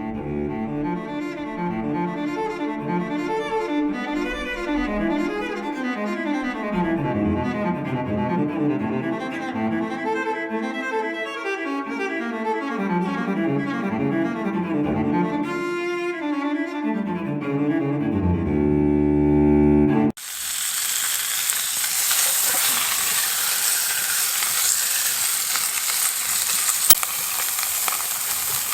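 Solo cello music, ending on a long held chord, then cutting off suddenly to a steady sizzle of trout frying for the last several seconds, with one sharp click near the end.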